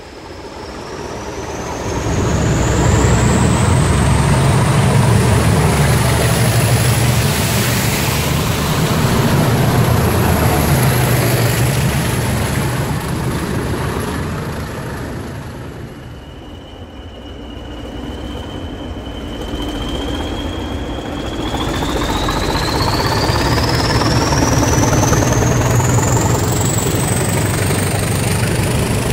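A diesel-hauled train running through a station, the locomotive's engine and the wheels on the rails loud for some seconds before easing off. Then, about halfway through, a Class 20 diesel locomotive with its English Electric eight-cylinder engine passes slowly hauling tank wagons, the engine sound building and then holding steady.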